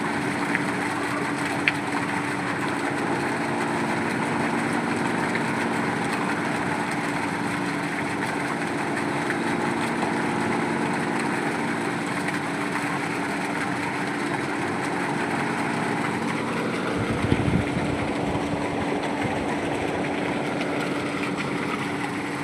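Engine of a borewell boring machine running steadily, with a brief spell of deep thudding about three quarters of the way through.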